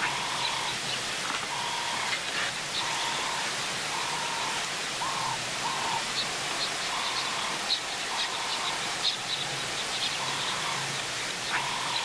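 A bird calls the same short, even-pitched note over and over, about once a second, with faint high chirps among it. Underneath runs a steady rushing hiss.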